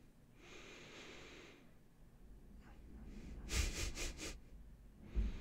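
A man breathing into a close microphone, with a short chuckle through the nose, four or five quick puffs, about three and a half seconds in.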